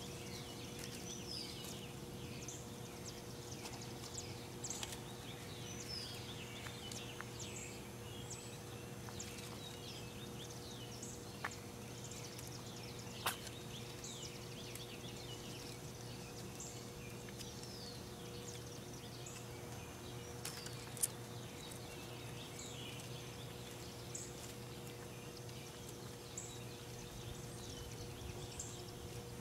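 Faint outdoor ambience of many small birds chirping and twittering in short, high calls, over a steady low electrical-sounding hum. A few sharp clicks stand out, the loudest about halfway through and again about two-thirds in.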